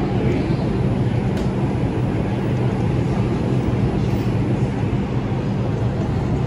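R142 subway train sound: a steady mechanical rumble with a constant low hum that holds the same pitch throughout.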